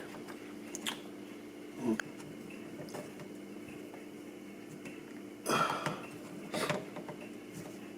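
Quiet room tone with a steady low hum, broken by a few short breaths or sniffs from a man at work. The loudest comes about five and a half seconds in, with another a second later.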